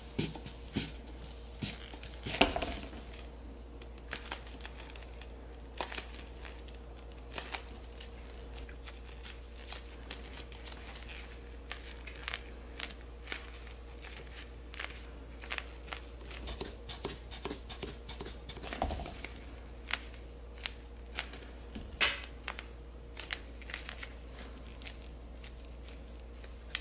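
Gloved hands handling and shaping a ball of warm sugar dough, giving scattered small crinkling clicks and creaks, with a few louder ones, over a faint steady hum.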